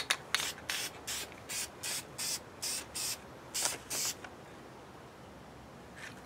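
Aerosol spray paint can spraying in short bursts, about two or three a second, stopping about four seconds in.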